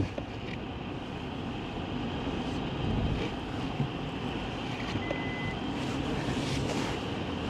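Suzuki Jimny's engine running under load in four-wheel-drive high range as it tries to pull out of deep snow, growing slowly louder. A short beep sounds about five seconds in.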